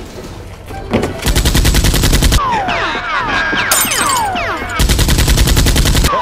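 Rapid automatic gunfire in two bursts of about a second each, around a dozen shots a second. Between the bursts come falling whistling tones.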